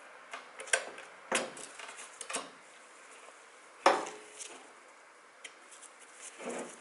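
Small metal clicks and clinks as a fork guide bushing is worked onto the end of a motorcycle fork tube, with a sharper knock about four seconds in and another near the end.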